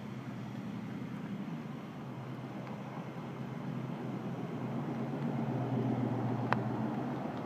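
Steady low mechanical hum, like a running engine or machine, swelling slightly in the second half, with one sharp click about six and a half seconds in.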